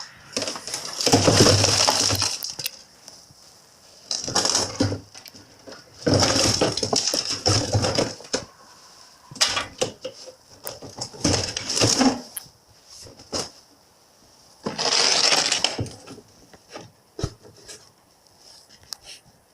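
Several bursts of crunching and clattering, with scattered clicks, from broken pieces being handled, separated by quiet gaps.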